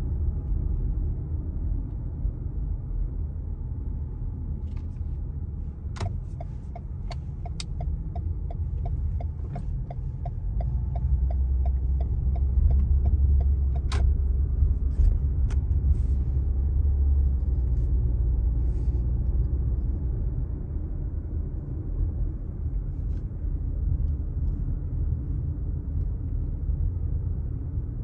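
Steady low rumble of a car's engine and tyres heard from inside the cabin while driving slowly. In the middle, a regular ticking, about two a second, runs for several seconds and starts and ends with a sharp click.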